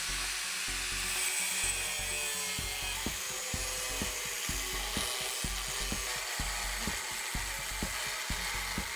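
Power tool cutting with a steady, high, hissing grind, over background music with a steady beat.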